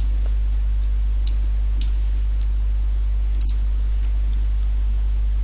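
Steady low electrical mains hum on the microphone line, with a few faint computer-mouse clicks, one of them a double click about three and a half seconds in.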